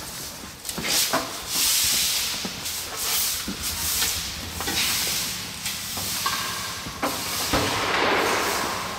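Straw broom sweeping a concrete floor strewn with bamboo scraps: repeated scratchy swishes, each about a second long, with a few sharp clicks and knocks between strokes.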